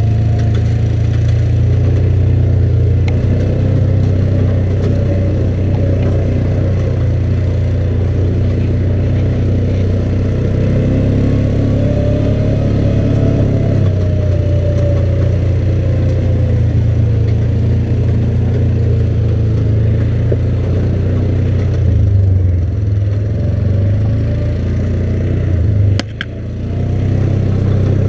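ATV engine running under way along a rough trail, its note rising and falling a little with the throttle. About two seconds before the end it cuts back briefly with a click, then picks up again.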